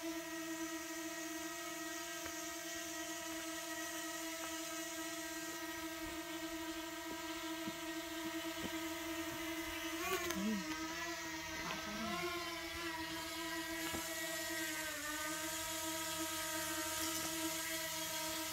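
DJI Mini 2 quadcopter drone's propellers whining steadily in flight. The pitch dips briefly about ten seconds in and again near fifteen seconds as the rotor speed changes.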